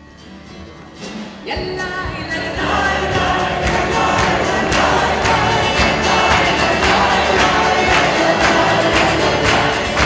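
Choir singing over instrumental accompaniment with a steady beat, swelling in over the first two seconds and then carrying on at full level.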